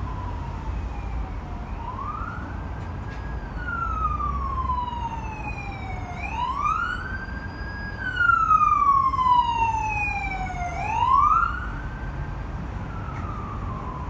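An emergency vehicle's siren wails slowly: each cycle rises quickly, holds briefly, then falls over about three seconds, repeating about every four and a half seconds. It is loudest about two thirds of the way through as the vehicle passes, over the steady rumble of heavy expressway traffic.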